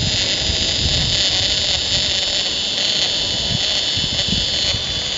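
Fishing reel's drag running steadily in a high whine as a hooked shark pulls line off against the bent rod. Gusts of wind buffet the microphone.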